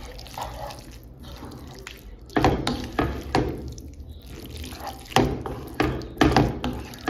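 Wooden spoon stirring and tossing spaghetti through a thick cream sauce with shrimp in a frying pan: wet squelching and slapping, with irregular louder strokes of the spoon against the pan from about two seconds in.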